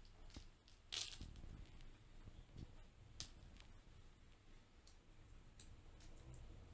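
Near silence broken by a few faint clicks and crackles of fresh pistachios being hulled by hand. The sharpest click comes about a second in.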